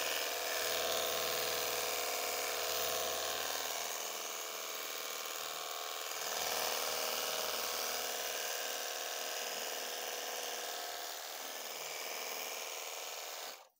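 Cordless 48 V battery pressure washer running: its small electric pump motor whines steadily under the hiss of a low-pressure water spray hitting the car. It cuts off abruptly at the very end.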